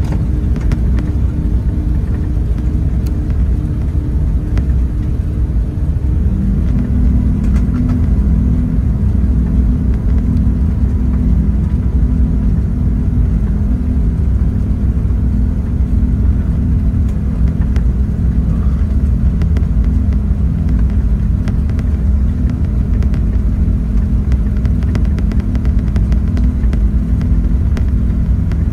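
Airbus A380-800 cabin noise: a steady, loud low rumble of engines and airflow heard from inside the passenger cabin. The engine hum shifts to a different pitch about six seconds in.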